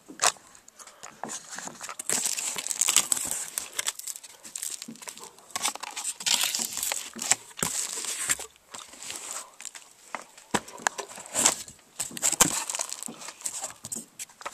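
Cardboard box and packaging being handled and opened: irregular crinkling, rustling and tearing, with many sharp clicks and knocks.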